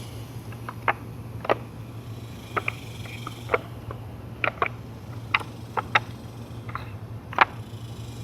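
Scattered light clicks and knocks of fishing-line spools being handled in a wooden spool holder, over a steady low hum.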